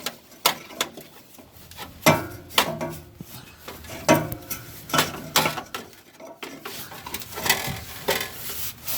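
Irregular clicks, knocks and scraping of hard plastic and metal as hands work an oxygen sensor's wiring connector loose.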